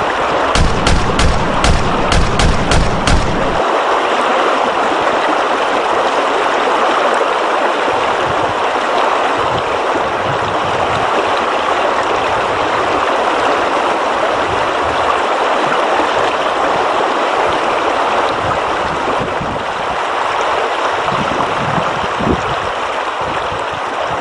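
Steady rushing of river water, with a rapid volley of about ten gunshots, roughly three a second, over the first three seconds.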